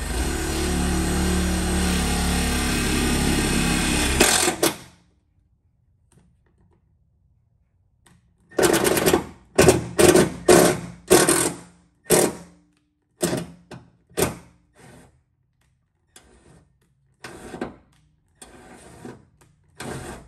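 Power drill running steadily under load for about four and a half seconds, drilling through the car's sheet-metal trunk lid, then stopping abruptly. After a short pause come a string of short bursts and knocks.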